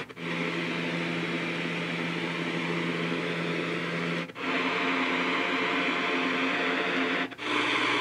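Avantek WN1B white noise machine's speaker playing steady recorded noise with a low hum. It switches track twice, cutting out briefly about four seconds in and again near the end as the next-sound button is pressed. The last track sounds like an airplane.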